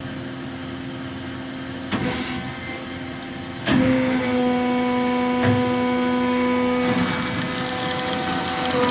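Amada HA-500 automatic horizontal bandsaw running with a steady machine hum. The hum steps up sharply louder with a clunk just over a third of the way in, there is another knock a little later, and a hiss joins in near the end.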